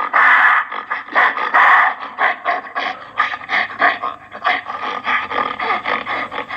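Gorilla vocalising: two longer, loud, rasping calls, then a rapid run of short grunts, about three a second, growing quieter toward the end.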